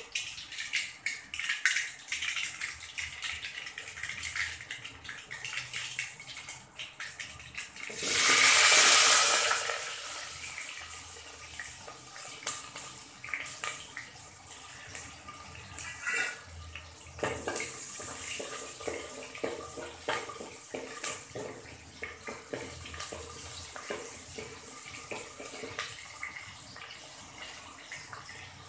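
Mustard seeds crackling and popping in hot oil in an aluminium pot. About eight seconds in comes a loud sizzling hiss lasting a couple of seconds as shallots and green chillies hit the oil, and then they fry with a steady, lighter sizzle and crackle.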